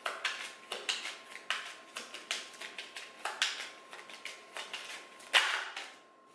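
A deck of tarot and oracle cards shuffled by hand, cards sliding and snapping against each other in quick irregular flicks, with a louder riffle near the end before the shuffling stops.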